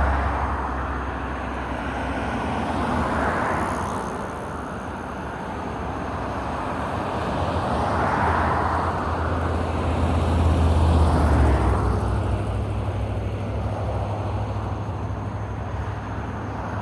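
Road traffic: vehicles passing in several swells over a steady low hum.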